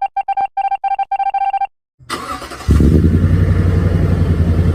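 A run of electronic beeps in an uneven on-off pattern, then after a brief pause a loud, steady low rumble like a running engine that builds up about two seconds in.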